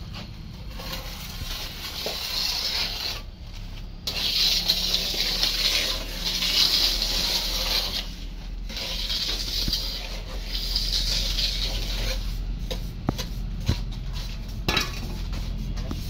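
Hand trowel scraping and smoothing wet cement along a pipe mould, in long strokes of a few seconds each, with a few sharp knocks later on.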